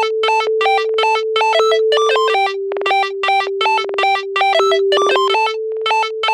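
Background music: quick, evenly repeating synthesizer notes over a held tone that drops in pitch partway through and later steps back up.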